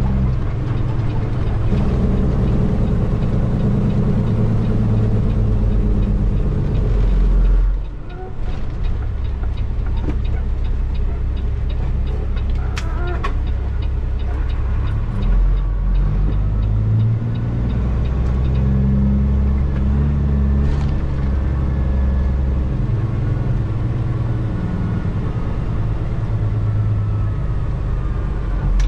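Straight-piped Cummins diesel of a Peterbilt 379 running under load, heard from inside the cab. The engine note drops off briefly about eight seconds in, then changes pitch in steps, as with gear changes on the 18-speed transmission.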